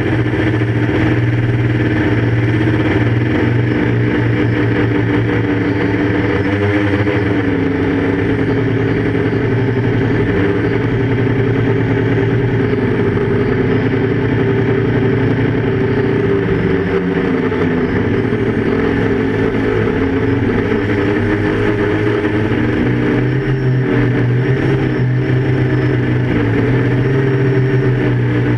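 Quadcopter's electric motors and propellers droning steadily, heard from the onboard camera, with only small shifts in pitch as it holds and moves.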